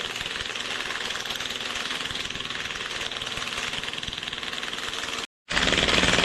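Impact wrench hammering steadily on a harmonic balancer puller's forcing screw, pressing the balancer off an LS V8's crankshaft snout. It stops for a moment about five seconds in, then comes back louder near the end.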